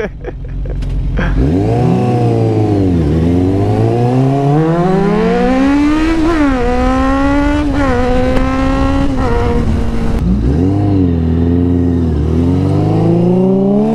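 Suzuki sport motorcycle engine accelerating hard from a stop, revs climbing and then dropping at each upshift several times through the gears, with wind and road noise.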